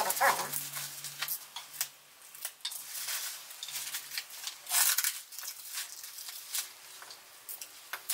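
Plastic bubble wrap rustling and crinkling as packed items are handled and unwrapped, with scattered small clicks and knocks. Two louder rustles come about three and five seconds in.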